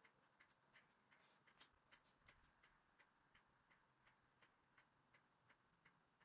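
Faint, regular ticking, about three ticks a second, over near silence.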